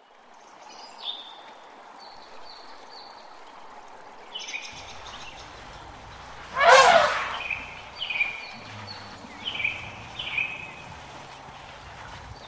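Birds calling with short falling chirps, repeated again and again. A loud, brief rushing burst comes about halfway through, another begins right at the end, and a low steady hum comes in about a third of the way through.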